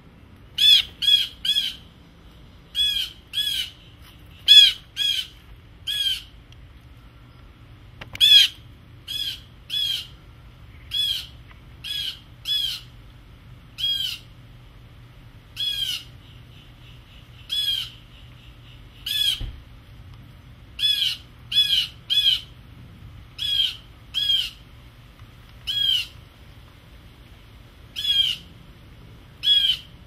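Blue jay giving harsh jeer calls over and over, about two dozen short calls, some in quick pairs or threes: scolding alarm calls aimed at a cat.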